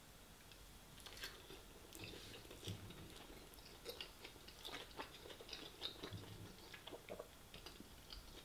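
Close-miked chewing of a battered sweet and sour chicken ball: a run of faint short clicks and mouth sounds that starts about a second in.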